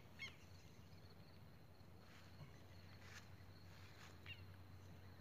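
Near-silent open-air quiet with a few faint, brief bird calls: one just after the start and another about four seconds in.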